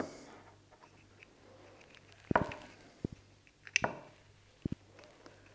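Several short, sharp knocks and taps as the synthetic rifle stock is handled and turned on the workbench, over a faint steady hum.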